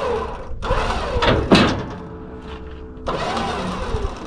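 Vehicle engine revving in short bursts while the truck is pulled onto a trailer, with a sharp clank about a second and a half in and a steady lower hum between bursts.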